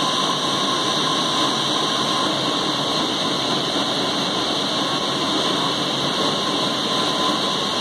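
Teknoway T100 direct warping machine running with yarn threaded through it: a steady mechanical hiss with a faint constant whine.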